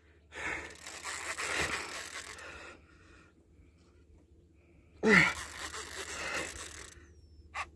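A man's heavy, strained breathing from the exertion of fighting a big catfish on the rod: a long noisy exhale, then a grunt of effort about five seconds in followed by another hard breath.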